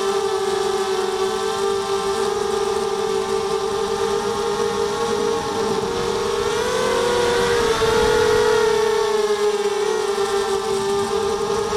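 ZMR250 racing quadcopter's four brushless motors and propellers whining in flight, heard from the camera on board: several close tones that beat against each other. The pitch swells and rises about six to eight seconds in as the throttle is raised for a climb, then settles back.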